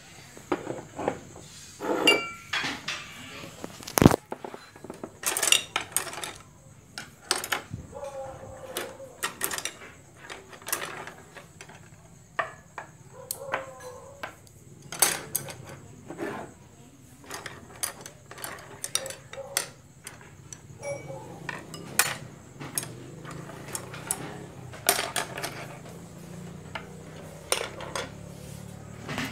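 Ceramic bowls, glasses, beer cans and cutlery knocking and clinking on a wooden table in many irregular sharp clicks as a meal is set out, with low voices in between.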